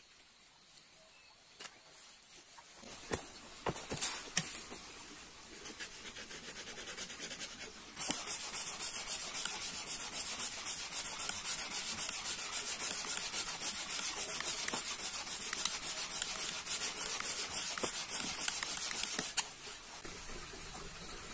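Bamboo fire saw: a split bamboo edge rubbed hard and fast back and forth across another piece of bamboo, making friction heat for an ember. The rubbing builds after a few knocks, runs steadily for about eleven seconds, then stops abruptly.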